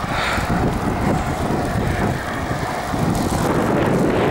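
A van's engine and tyres on asphalt, approaching and growing louder toward the end, mixed with wind rushing over the microphone of a moving bicycle.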